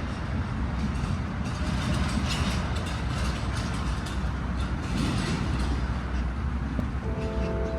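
Steady low rumble of outdoor background noise, with soft background music coming in near the end.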